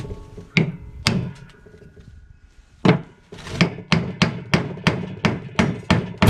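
Hammer knocking on a firebrick: a couple of separate blows, then a steady run of about three taps a second, the way a brick is tapped along a line to split it.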